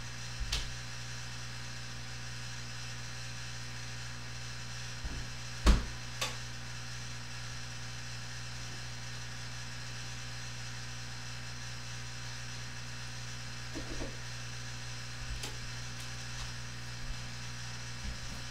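Steady low electrical hum, with a loud knock a little over five seconds in and a lighter one just after, and a few faint bumps later on.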